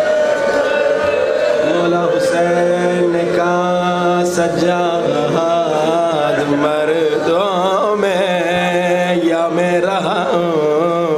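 A man chanting a mournful lament in long held notes that waver and bend in pitch. This is the sung, grieving style used for the tragedy part (masaib) of a Muharram majlis.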